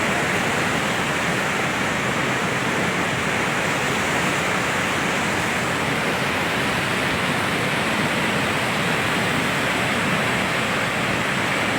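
Floodwater in a river in spate rushing steadily, a constant loud rush of water.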